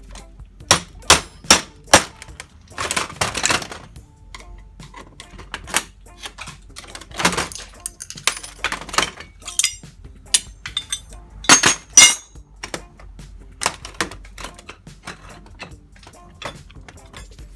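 Sharp metal-on-metal knocks and clinks as brass door handles are struck and knocked apart with hand tools in a small bench vise, with rattling of loose brass parts. Four quick knocks come about a second in, and scattered blows follow, the loudest two near the twelve-second mark.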